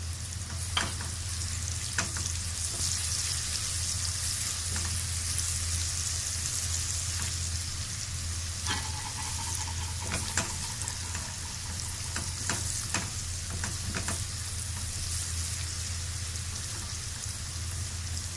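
Onion and garlic frying in corn oil in a pot: a steady sizzle, with a utensil knocking against the pot several times as it is stirred.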